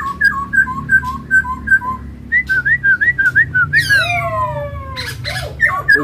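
Poksai Hongkong laughingthrush in full song: a run of clear two-note whistles, high then low, about three a second, then a burst of quick upslurred notes and, near the end, long falling whistled slurs.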